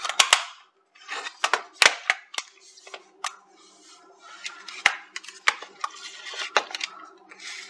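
Sharp plastic clicks and taps from handling a Retekess V115 shortwave radio. Its back battery cover is pressed shut with a pair of snaps right at the start, then the radio is set down and its front buttons are pressed, about a dozen clicks in all at uneven intervals.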